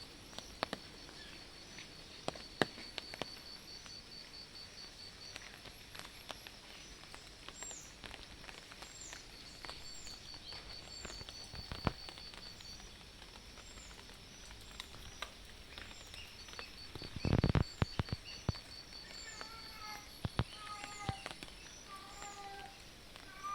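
Rainy outdoor ambience: scattered dripping taps, a cricket-like insect trilling in stretches, and a high chirp repeating about once a second. A short thump about three-quarters of the way through, then a stray cat starts mewing, short cries repeating toward the end.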